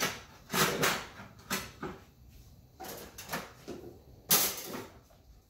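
Kitchen drawers and cupboards being opened and shut off to the side while a utensil is fetched: a string of short sliding and knocking noises, the loudest about four seconds in.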